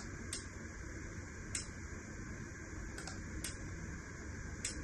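Computer mouse clicking, about half a dozen sharp clicks at uneven intervals, over a steady low hum.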